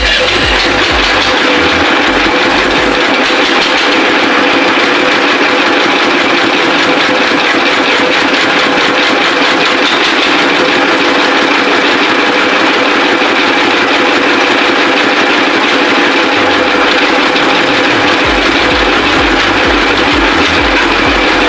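Brush cutter motor running steadily at high speed, with a held tone over a dense buzz.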